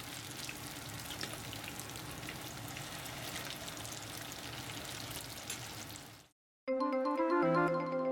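Ganmodoki tofu fritters deep-frying in hot oil: a steady crackling sizzle that cuts off suddenly about six seconds in. A short music jingle of bright melodic notes follows near the end.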